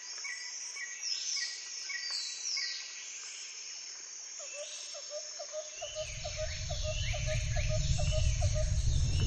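Natural ambience of chirping birds and insects, with repeated falling chirps and a quick run of pulsing calls near the middle. About six seconds in, a deep volcanic rumble begins under them and grows steadily louder.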